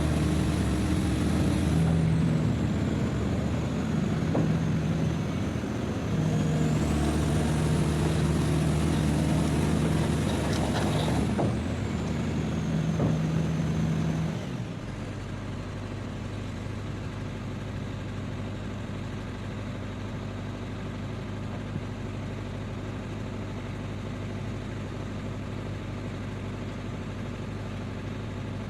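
Heavy-equipment diesel engine running at raised revs with a high whine that falls and rises in pitch, its note shifting several times; about halfway through it drops to a steady, quieter idle.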